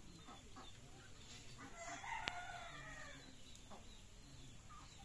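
A rooster crows once, about two seconds in, the call lasting a little over a second. A single sharp click sounds in the middle of it.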